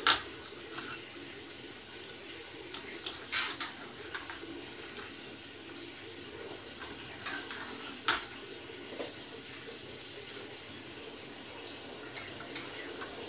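Stainless-steel idli plates giving a few light metallic clinks as they are slid onto the stand's central rod, over a steady watery hiss.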